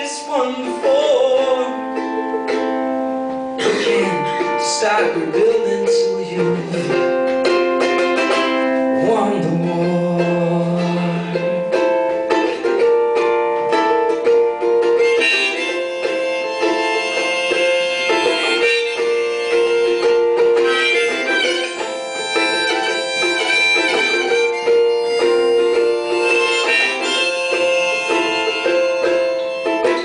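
Ukulele strummed together with a harmonica played from a neck rack in an instrumental passage; the harmonica's held notes come through strongly from about halfway on.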